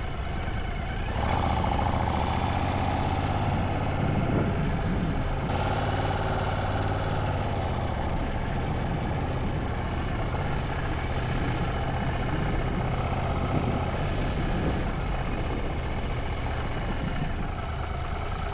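Royal Enfield Continental GT 650's parallel-twin engine running steadily at low revs as the bike rides slowly, a little louder from about a second in.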